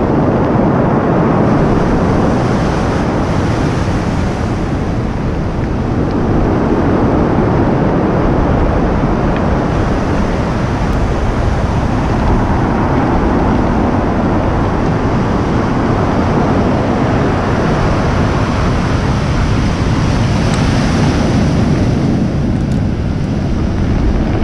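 Heavy surf breaking steadily on a cobble beach, with wind buffeting the microphone.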